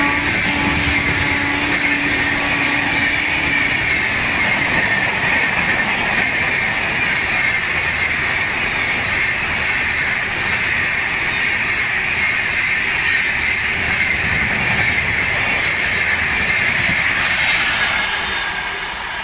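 An express train's LHB passenger coaches run past at speed, giving a steady, loud rush of wheels on rail with some clickety-clack and a hissing edge. A held horn note carries over into the first few seconds and then stops. The noise falls away near the end.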